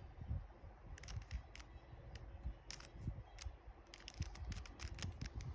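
Plastic 3x3 Rubik's Cube being twisted through an algorithm: quick, irregular clicks and clacks of its layers turning, several in fast runs.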